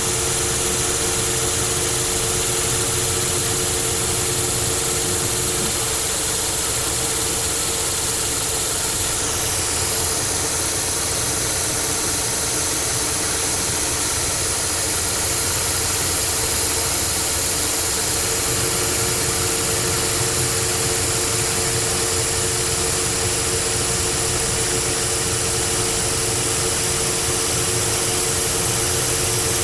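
Old Monarch engine lathe running steadily, taking a turning cut to bring the handle stock down toward size. A constant machine hum with a steady mid tone, and a high whine that drops in pitch about ten seconds in.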